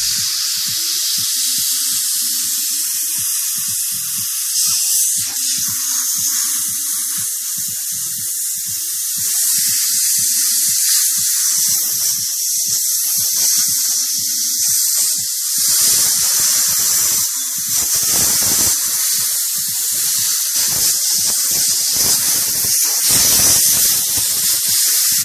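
Compressed-air blow gun hissing steadily as it blows air across an iPhone 4S logic board to clean off seawater.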